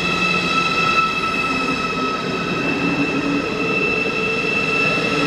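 ICE 4 high-speed electric train pulling out of a station and rolling past close by. It makes a steady high whine over the running noise, with a lower tone that climbs in pitch as it picks up speed.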